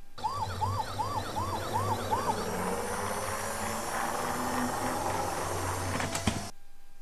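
Electronic siren sound from a toy emergency vehicle: a fast yelping whoop, about two to three rises and falls a second, for the first two seconds, then a rushing noise with a fainter siren tone under it that cuts off suddenly near the end.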